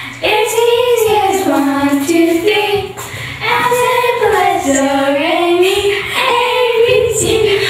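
A young girl singing a melody, holding long notes that slide up and down in pitch, in phrases with short breaks between them.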